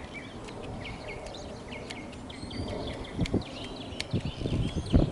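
Small birds chirping in many short calls, over low gusts of wind buffeting the microphone that grow stronger near the end. A sharp click about four seconds in.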